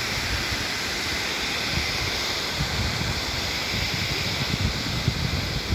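Waterfall pouring steadily: a constant hiss-rush of falling water, with irregular low thumps of wind buffeting the microphone.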